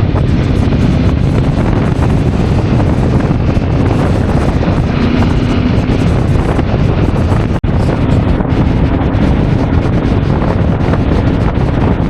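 Heavy wind buffeting on the microphone of a moving Yamaha Ténéré motorcycle, with the engine's steady drone underneath. The sound drops out for an instant about halfway through.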